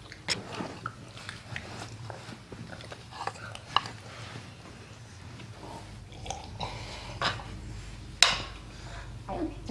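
A family eating from a frying pan of charmuki: scattered small spoon clicks and scrapes against the pan, and chewing. A sharper clink about eight seconds in.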